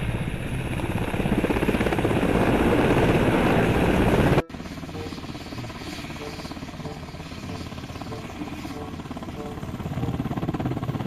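Helicopter rotor sound, a fast dense chopping, loud for about four seconds and then cut off abruptly. A quieter stretch follows with a row of short, evenly spaced beeps, and the chopping swells again near the end.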